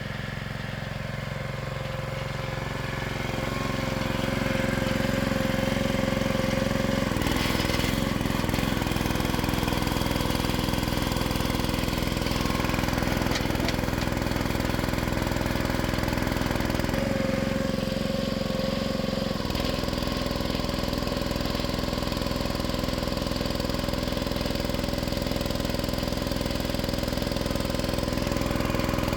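A small engine running steadily, its note shifting about seven seconds in and again for a couple of seconds past the middle.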